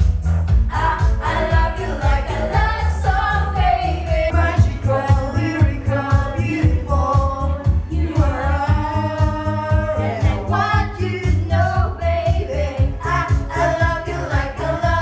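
Group singing karaoke over a backing track with a steady, heavy bass beat.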